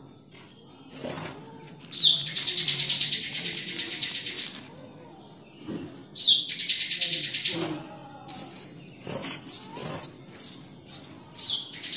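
Bar-winged prinia (ciblek) nestlings begging: two rapid, high pulsing trills of a couple of seconds and about one second, each opening with a quick rising note, then a run of short high chirps near the end.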